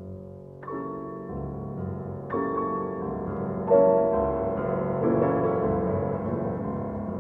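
Background piano music: slow, sustained chords struck about every one and a half seconds, growing louder through the middle.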